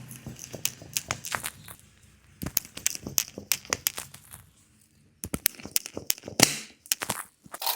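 Handling noise: rustling with many sharp, irregular clicks and slaps, easing off a little past halfway and with the sharpest knock near the end.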